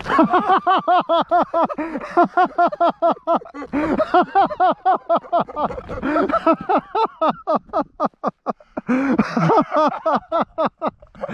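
A man laughing hard and excitedly, a long rapid run of 'ha-ha' pulses with brief catches of breath.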